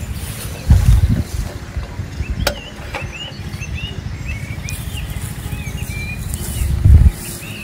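Wind buffeting the microphone, a steady low rumble with two loud gusts, about a second in and near the end. Small birds chirp throughout, and there is a single sharp click about two and a half seconds in.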